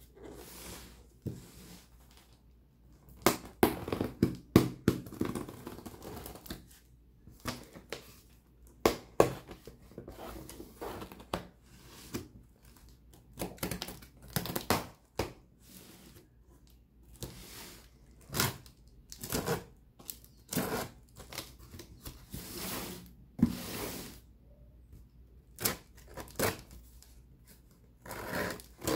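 Packing tape on a cardboard box being slit and torn away, with irregular rips, scrapes and knocks of the cardboard being handled.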